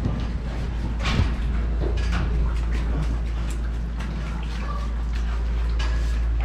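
Cows being moved through a barn: scattered knocks and clanks of gates and hooves, one louder clank about a second in, over a steady low rumble.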